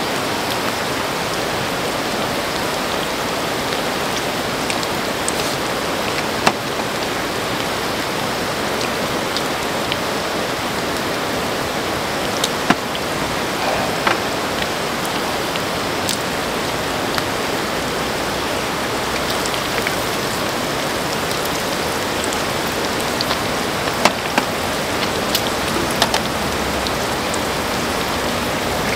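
Pork intestines and pork belly sizzling on a griddle pan over a camp burner: a steady sizzle with a few sharp pops now and then.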